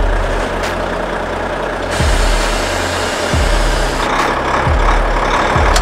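Background hip-hop beat: a slow, heavy kick drum with deep, steady bass notes.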